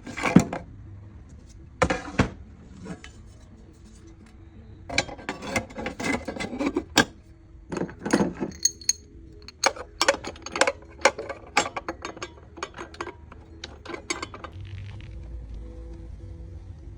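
Metal parts and hand tools clinking and clattering in quick irregular clusters, over a faint steady hum; the cut-off saw's engine is not running.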